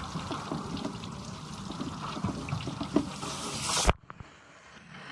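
Water pouring and splashing as a boat hull is flushed out, draining with mud and debris from the back drain hole. It cuts off abruptly with a click about four seconds in, leaving a much quieter background.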